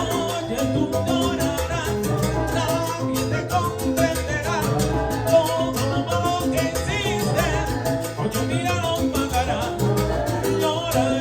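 Salsa band playing a steady, driving groove with percussion, with singing over it.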